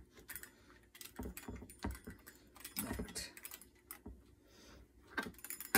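Rolling pizza cutter pressing through biscuit dough onto a plastic cutting board: irregular clicks and taps as the wheel strikes and rolls across the board.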